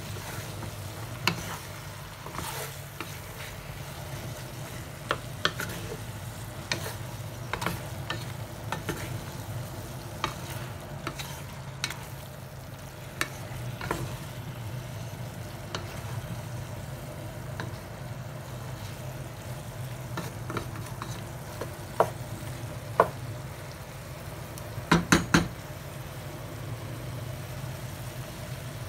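Bok choy and mushrooms cooking in oyster-sauce gravy in a metal pot, with a wooden spatula stirring and knocking against the pot. Scattered clicks and knocks are heard, with three loud knocks in quick succession about 25 seconds in, over a steady low hum.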